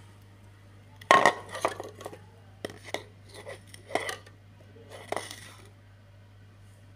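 Steel cooking pot clinking and knocking as it is handled, a cluster of sharp metallic knocks over a few seconds, the loudest about a second in, over a steady low hum.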